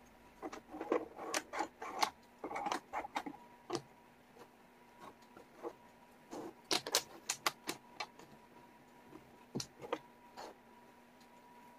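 Wooden jigsaw puzzle pieces clicking and tapping against each other and the table as they are picked up, sorted and pressed into place. The clicks come in two busy flurries, with a few single taps near the end.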